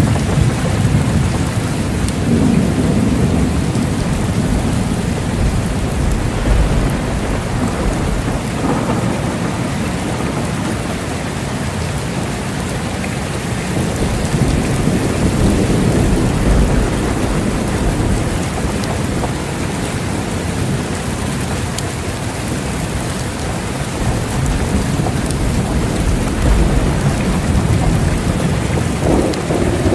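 Steady heavy rain falling, with low thunder rumbling underneath and swelling several times.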